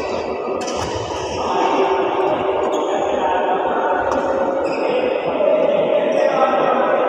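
Badminton being played in an echoing indoor hall: a couple of sharp racket hits on the shuttlecock and shoe squeaks on the court floor over a steady background din.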